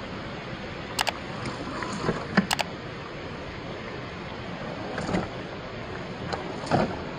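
Steady rush of a shallow rocky stream, with a few sharp clicks and knocks as a scale RC pickup truck's tyres and chassis bump over rock, two of them close together about two and a half seconds in.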